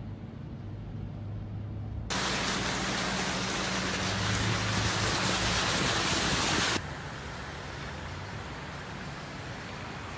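A car driving on a rain-soaked road: a low engine hum under a steady hiss of wet tyres. About two seconds in, a much louder, brighter hiss cuts in, and it stops just as abruptly some five seconds later.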